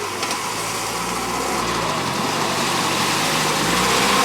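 Car engine running steadily under a loud, even rushing noise. It grows slightly louder toward the end.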